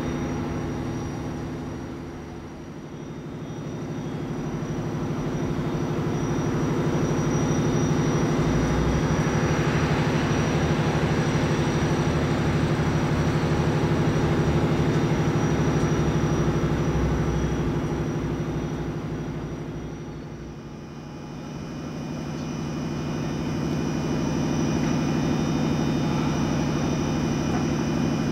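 SNCF BB 22200 electric locomotive's fans and electrical equipment running: a steady low hum with several tones and a thin high whine. It fades down and back up twice, about three seconds in and again near two-thirds of the way.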